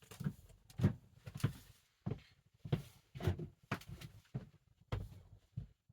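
Irregular soft thumps and rustles, about two a second, of a basketball jersey being handled and pulled on.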